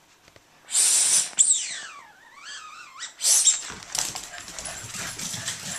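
Boston terriers giving excited high-pitched barks and a whine that slides down and then back up in pitch. This is followed by a run of scuffling and clicking as the dogs dash off to play.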